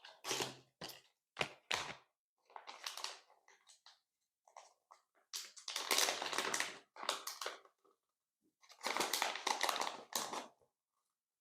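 Hands squishing and pressing slime in six separate bouts, the last two each lasting about two seconds, stopping a little before the end.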